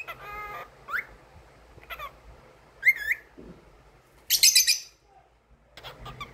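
Cockatiel calling in short separate bursts: a buzzy chirp, a few brief rising whistles, then a loud wavy whistle about three seconds in. About a second later comes a loud harsh screech, the loudest sound of all.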